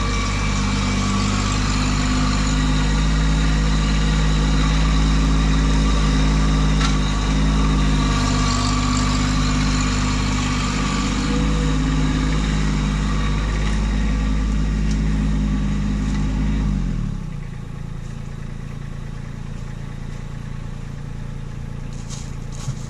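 Kubota B2601 compact tractor's three-cylinder diesel engine running, then shut off about seventeen seconds in, its note dropping and dying away.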